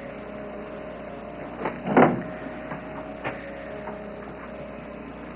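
A door shutting with a thud about two seconds in, with a few lighter knocks around it, over a steady faint hum.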